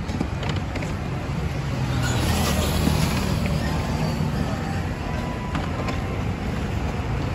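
Street traffic noise with a steady low rumble of motor vehicles, swelling as a vehicle passes about two seconds in.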